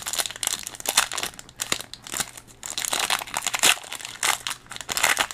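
Crinkly foil wrapper of a Pokémon TCG Battle Styles booster pack being torn open and handled, a dense, irregular run of crackles.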